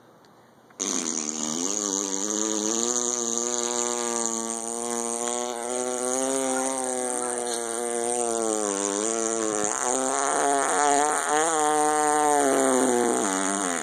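A buzzing, horn-like drone, held on one wavering pitch. It starts suddenly about a second in, warbles more toward the end, and cuts off abruptly. This is the 'strange sound in the sky' the group is hearing.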